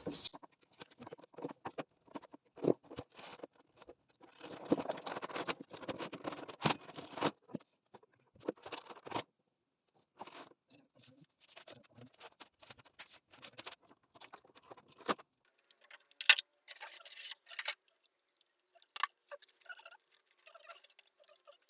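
A cardboard box being opened and its packaging handled: irregular rustling, scraping, taps and clicks, with a few sharper snaps about two-thirds of the way through.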